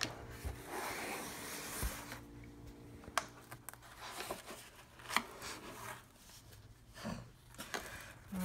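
Handling noise from a cardboard box and a wooden clock: a short rustle of cardboard, then a few separate light knocks and taps.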